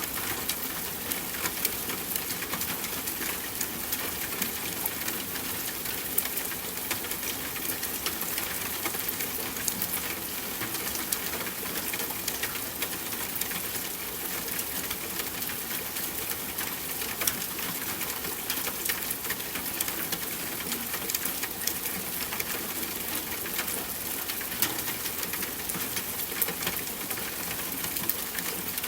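Steady rain falling: an even hiss with many small drops ticking close by, unchanging throughout.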